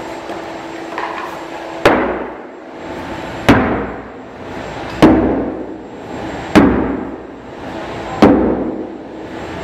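Sledgehammer striking a plastic manhole cone five times, about one blow every second and a half, in a repeated-blow impact test. Each blow is a sharp knock followed by a short ringing.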